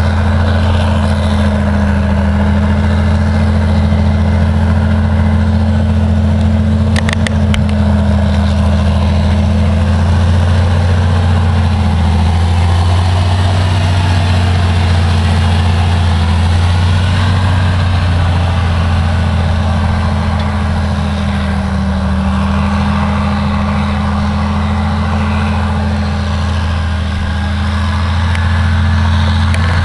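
Caterpillar 633 wheel tractor-scraper's diesel engine running under load, a loud, steady low drone whose pitch rises and dips slightly. It eases off a little in the last third and picks up again near the end, with a brief click about seven seconds in.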